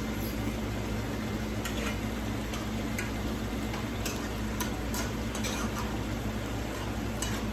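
Chicken feet frying in a wok, a steady hiss over a low hum, with scattered light clicks and taps of a metal spoon stirring rice in a metal pot.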